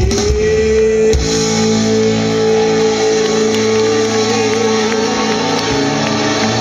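Live rock band playing an instrumental passage. A lead instrument slides up into one long held note that wavers before it fades, over the rest of the band.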